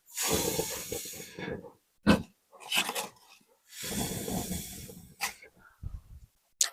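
Pigs making two long, noisy, breathy sounds, each over a second, with a few short sharp knocks in between.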